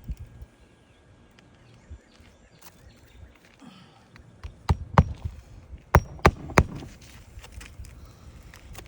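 Hammer blows on an asphalt-shingle roof: five sharp strikes in two quick groups, two just before five seconds in and three about a second later, with lighter taps and scuffing of shingles between.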